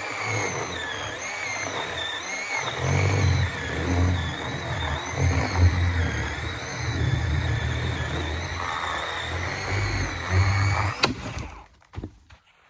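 Achiforce 20-volt cordless chainsaw cutting through a log under load, its motor whine wavering in pitch as the chain bites into the wood. A sharp snap comes about eleven seconds in, and the saw stops soon after as the cut finishes.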